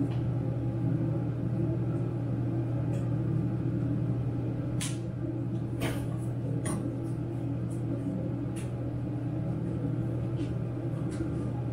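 A steady low mechanical hum, with a few light clicks over it.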